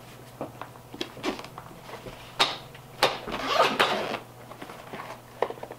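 Zipper on a soft fabric carrying case being pulled open, a rapid scratchy run a little past halfway, among knocks and rustles as the case is handled.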